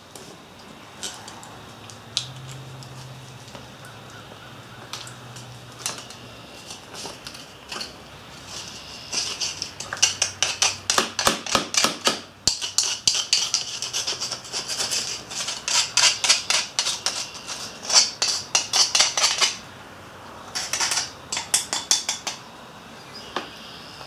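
Freshly poured aluminium casting being dug out of black casting sand in its mould: scattered taps at first, then about ten seconds of rapid clinking and scraping, with a shorter flurry near the end.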